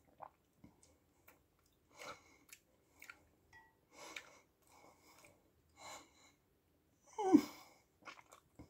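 A person eating chicken noodle soup from a spoon: soft chewing and sipping sounds every second or two, and one louder mouth sound about seven seconds in.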